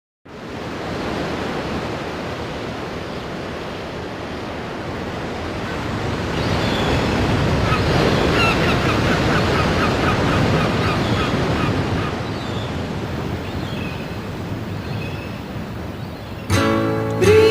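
Ocean surf washing onto a shore, swelling louder through the middle. About a second before the end, the band's music comes in over it.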